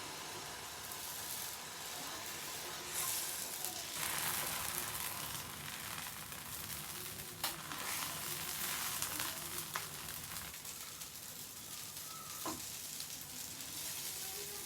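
Dosa sizzling on a hot pan: a steady frying hiss, with a few sharp clicks partway through.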